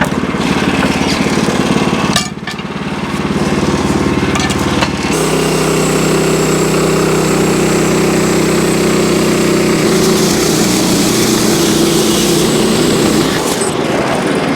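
Wood-Mizer LX25 sawmill's engine running steadily, its note shifting about five seconds in.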